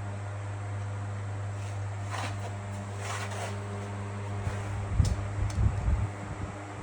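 A steady low machine hum, like a fan, with two brief rubbing or rustling sounds a couple of seconds in, then a stretch of low bumps and rumbles a little past the middle.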